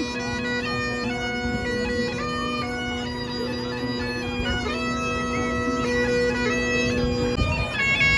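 Bagpipes playing a tune over a steady drone, the melody notes changing above it; the drone drops out near the end while the melody goes on.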